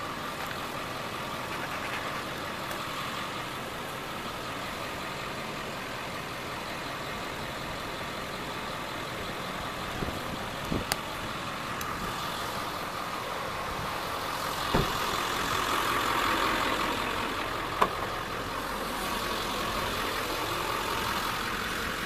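A vehicle engine idling steadily, growing a little louder about two-thirds of the way in, with a few short sharp clicks and knocks.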